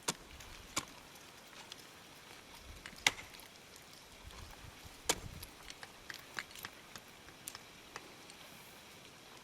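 Sharp, irregular knocks and clicks a second or two apart, the loudest about three and five seconds in: ice-climbing tools and crampons striking a frozen waterfall.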